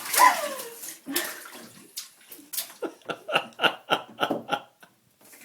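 A small child splashing water with her hands, a loud splash right at the start and another about a second in, followed by a run of quick, evenly repeated pulses.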